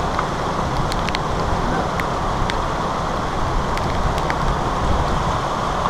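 A steady, even rush of fast-flowing muddy floodwater and heavy rain, with scattered sharp ticks of raindrops striking the camera.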